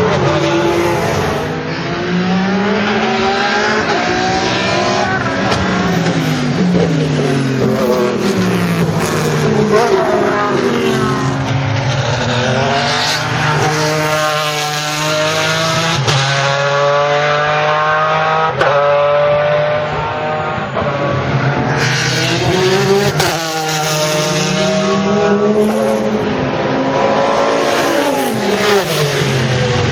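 Race car engines, among them a Pagani Zonda C12 GR's Mercedes-AMG V12, run hard on a circuit. The pitch climbs and drops over and over with gear changes and pass-bys, and at times several engine notes overlap.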